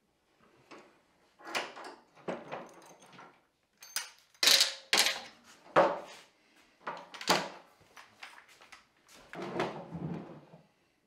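Metal bar clamps being loosened and lifted off a glued-up wooden table top, making a string of irregular clanks and knocks. Near the end, the wide wooden top scrapes and bumps as it is shifted across the workbench.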